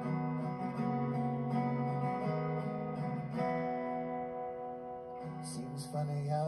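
Background music led by acoustic guitar, strummed chords that change every second or so, with light crisp percussion coming in near the end.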